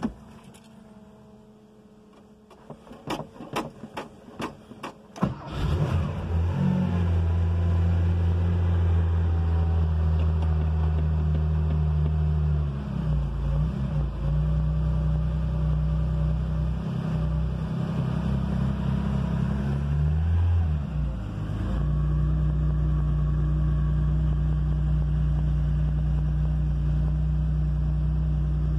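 Cold start of a 1973 Porsche 911S's original 2.4-litre air-cooled flat-six on Weber carburettors: a few sharp clicks, then the engine catches about five seconds in and runs loud and steady at a fast idle. It wavers briefly a couple of times before settling.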